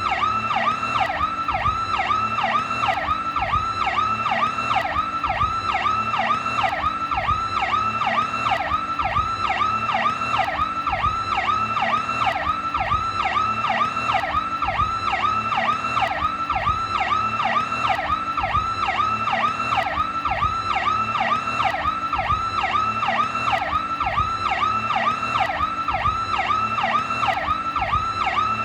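Federal Signal PowerCall electronic police siren, as used on New York police cars, sounding continuously in fast, evenly repeating up-and-down pitch sweeps.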